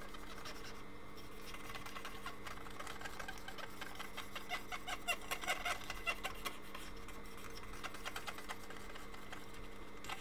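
Faint scratchy rubbing of an alcohol-dampened cotton swab scrubbing the contact pads of a multimeter's circuit board, in irregular strokes that are thickest in the middle, over a steady background hum.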